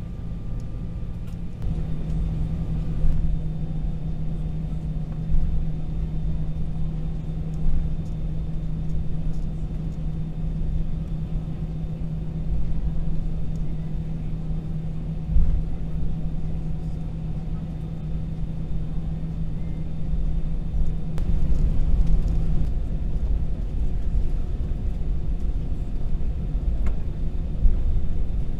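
Cabin noise of an Airbus A320 taxiing: a steady low rumble with a steady hum that stops about three-quarters of the way through, and a few brief thumps.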